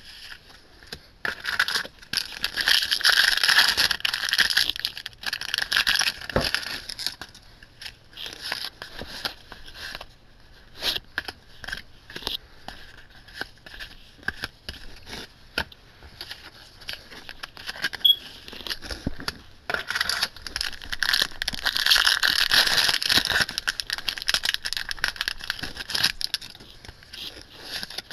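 Foil booster-pack wrappers crinkling and tearing in two longer stretches, a couple of seconds in and again about twenty seconds in. In between, trading cards slide and flick against each other in short rustles and clicks.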